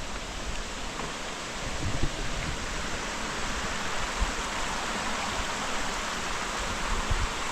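Steady rush of falling and flowing water from a waterfall and the stream below it, growing a little louder about two seconds in.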